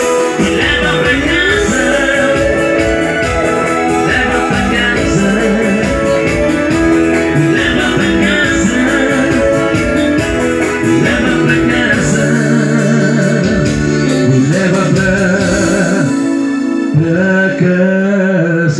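Live band playing a song: an electronic keyboard with an organ sound and an electric guitar, with a man singing. The beat drops out near the end, leaving keyboard and guitar.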